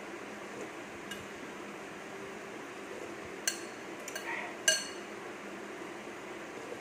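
Metal spoon clinking against a dish while soup is eaten: a few sharp, ringing clinks, the loudest about three and a half and nearly five seconds in, over a steady faint hum.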